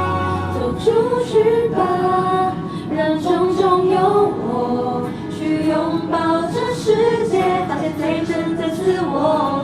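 A song playing, with voices singing a melody that moves between held notes.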